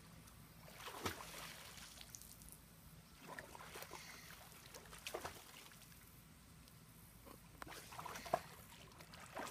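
Faint splashing and sloshing of pool water as a child surfaces and swims, in a few separate splashes a second or two apart.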